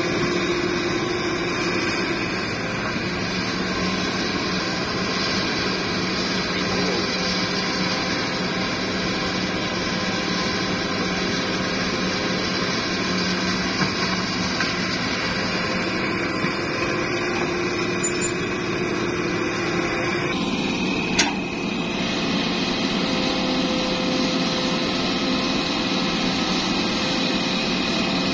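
Hitachi ZX-series hydraulic excavator's diesel engine running steadily under load while it digs and loads a dump truck, with a single sharp knock about three-quarters of the way through.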